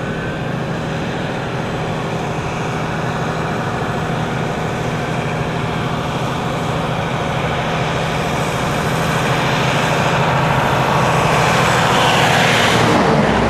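A vehicle engine runs steadily under a dense, loud roar of noise that slowly grows louder, swells near the end, then drops away.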